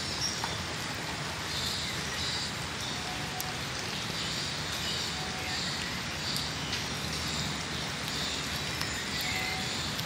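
Steady hissing background noise with a short, high chirp repeating about once a second and a few faint short whistled tones.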